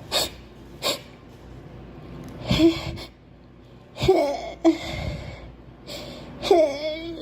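A girl sniffling and gasping on the edge of a sneeze: two quick sniffs, then a series of catching, voiced in-breaths as the sneeze builds.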